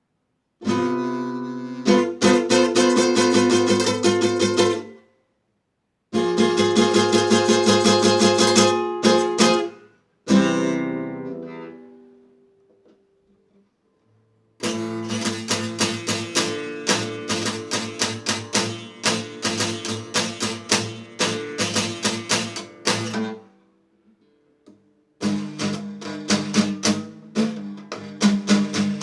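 Acoustic guitar strummed rapidly in bursts of quick chord strokes separated by short pauses; about ten seconds in, one chord is left ringing and fades away.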